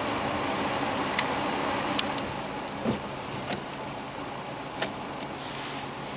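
Heater blower fan hissing through the dash vents of a 1999 Subaru Legacy with the engine idling, while the climate-control slider and knob are worked, giving several small clicks and a soft knock. The fan noise drops a little about two seconds in, as the blower is turned down.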